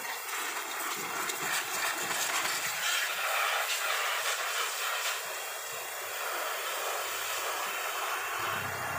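Steady hiss of a pressure washer's water jet spraying. A low engine hum comes in near the end.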